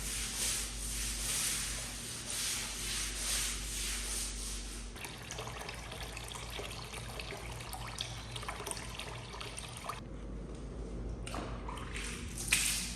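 Water running and splashing, the texture changing abruptly about five seconds in and again about ten seconds in, with small clicks in the middle stretch.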